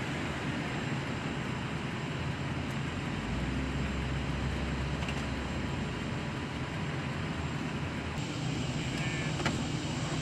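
Steady low drone of engines running, with a deeper rumble swelling for a few seconds in the middle and a faint click or two near the end.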